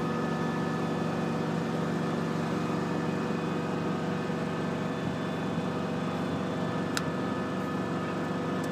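Aerial ladder truck running steadily, a continuous engine-and-hydraulic drone with several steady tones, and one short click about seven seconds in.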